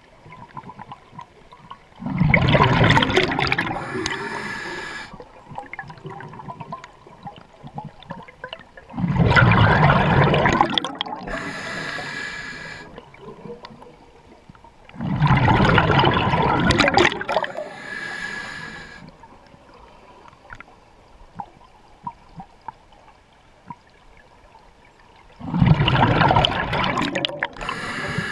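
Scuba diver breathing through a regulator underwater: four breaths, each a loud rush of exhaled bubbles followed by a higher hiss as the next breath is drawn in, about every six to seven seconds.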